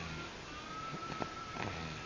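A sleeping child snoring, with low rough snoring breaths near the start and again near the end.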